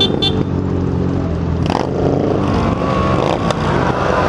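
Several motorcycle engines running together at overlapping pitches, among them a Yamaha XJ6 N's inline-four. A couple of short sharp sounds come right at the start, and there is a click about three and a half seconds in.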